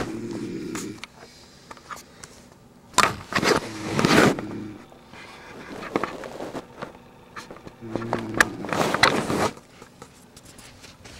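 A man snoring loudly in slow breaths a few seconds apart, harsh rasping snores alternating with low droning tones.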